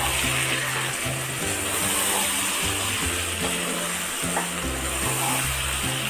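Chicken and cucumber pieces sizzling in a hot pan as they are stirred with a wooden spatula, over background music with held bass notes.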